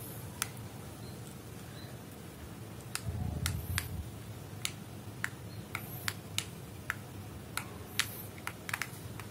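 Scattered sharp clicks and taps of small plastic parts being handled, a dozen or so spread unevenly, with a soft rustle about three seconds in.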